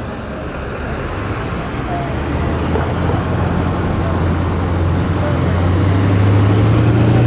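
Street traffic, led by a large vehicle's low engine hum that grows steadily louder, with faint voices underneath.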